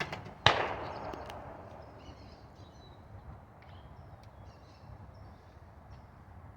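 A single shotgun shot about half a second in, echoing out over the next second, followed by small birds chirping faintly.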